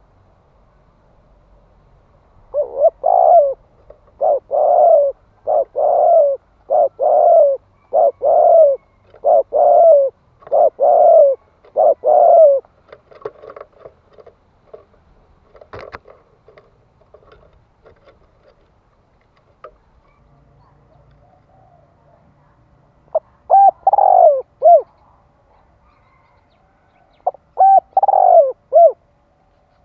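Spotted dove cooing: a quick run of about eight loud two-part coos, a lull with a single click in the middle, then two fuller coo phrases near the end. This is the fast, excited 'thúc' and 'gù' cooing used as a decoy call to draw in wild doves.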